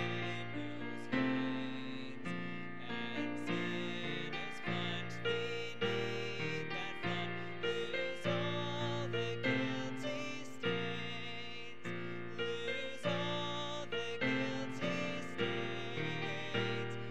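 Slow piano music. Notes are struck roughly once or twice a second and each dies away.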